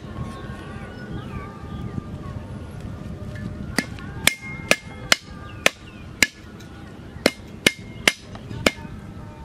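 Cleaver chopping on a round wooden cutting board. Starting about four seconds in, it makes about a dozen sharp, irregularly spaced strikes, some with a brief metallic ring.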